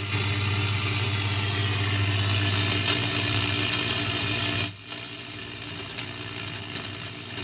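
Collins R-390 shortwave receiver putting out loud static hiss over a steady low hum through its speaker. About four and a half seconds in the noise drops sharply, leaving softer hiss and light clicking from the tuning gear train.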